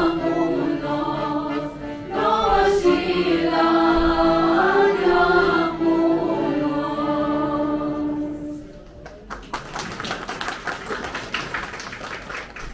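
A group of carollers sings a Romanian Christmas colind in unison without instruments. The song ends about eight and a half seconds in, and applause follows.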